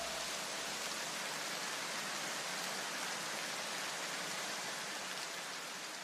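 Steady, even hiss, with the last notes of the electronic background music dying away in the first second.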